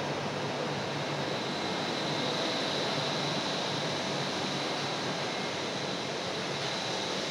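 Steady, even hiss of cabin noise inside a Bukit Panjang LRT C801B car, with a faint high whine that grows slightly about two seconds in.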